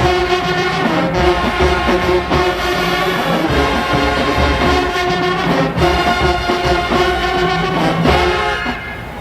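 A show-style marching band playing, brass horns over a steady drum beat; the playing drops away near the end.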